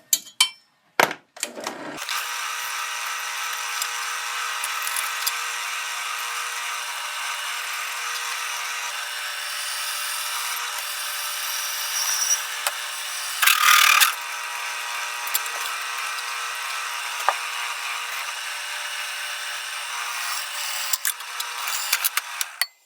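Electric drill running steadily as it bores a hole through a hand-forged metal door handle, with a louder grinding burst about halfway through. A few sharp clicks come before it starts, and it stops abruptly near the end.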